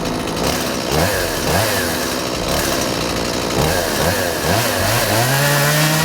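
Chainsaw engine revved in a series of short rising bursts, then held at high revs for about a second near the end.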